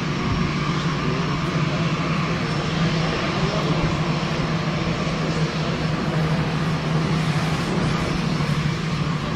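Airbus A330-900 airliner's Rolls-Royce Trent 7000 turbofan engines running: a steady rush of jet noise over a low hum, holding level.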